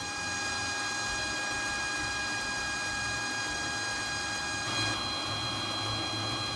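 Rotary melting furnace's burner firing steadily: a continuous roar with a steady high-pitched whine over it.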